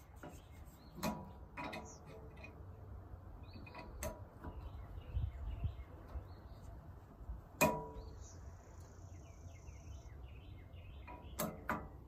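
A handful of sharp clicks and knocks a few seconds apart, the loudest about two-thirds through, as parts are handled and fitted back onto a Fortress 5-gallon air compressor. Birds chirp faintly in the background.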